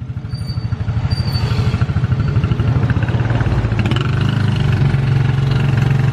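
Small motorcycle engine of a motor tricycle running while under way. It is heard as fast, even firing pulses that grow louder over the first couple of seconds and then hold steady.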